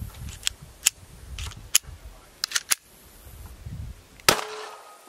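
Metallic clicks and clacks of a Ruger LCP Max .380 pistol being worked by hand to clear a feeding jam, about seven sharp clicks in the first three seconds, then one loud sharp clack a little over four seconds in.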